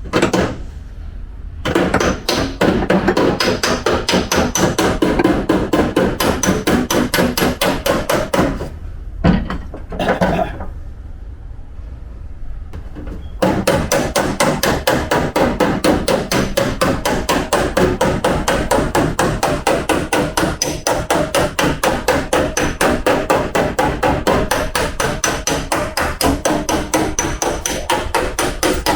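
Panel-beating hammer striking a Toyota Sienta's steel body panel in rapid, even blows, several a second, with a few-second pause near the middle broken by a couple of single strikes. The steel being straightened after a rear-end collision is unusually hard.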